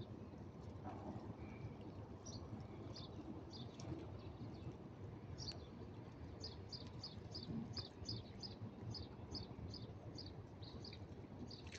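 A small bird chirping: short high chirps, a few scattered at first, then a regular run of about two to three a second through the second half, over a steady low background rumble.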